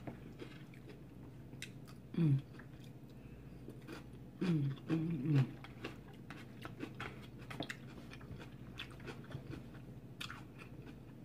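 A person chewing a mouthful of vegetable nachos close to the microphone: many small crunches and wet mouth clicks. There are a few short falling hums, one about two seconds in and a cluster around five seconds.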